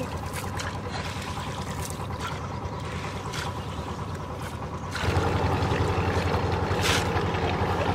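A small engine running steadily, growing louder about five seconds in, with a few faint clicks over it.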